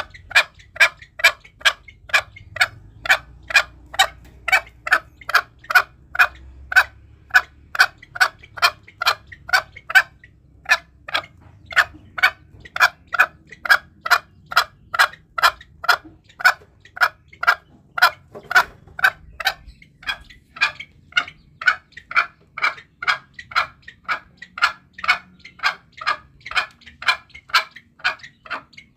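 Green junglefowl calling in a rapid, even series of short clucking notes, about two a second, with a brief pause about ten seconds in. It is a hunter's lure call, used to provoke and draw in wild junglefowl.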